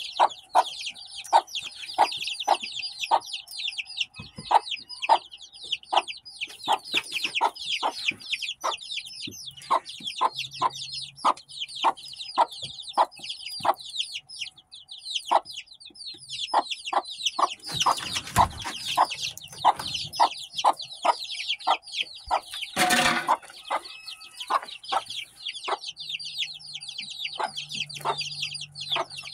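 Young ISA Brown and white layer chicks peeping constantly in high, falling chirps, over a steady run of short low clucks from an adult Golden Polish chicken, about two a second. A short scuffling burst comes about 18 seconds in, and a brief loud squawk about 23 seconds in.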